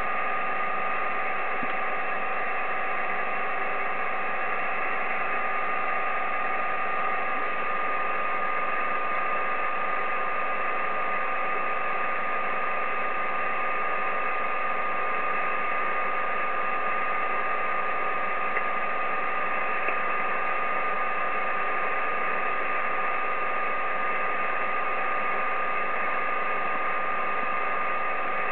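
Icom IC-7300 HF transceiver receiving on 10-metre upper sideband: steady band-noise hiss with two steady carrier whistles, one higher than the other, while no station is talking.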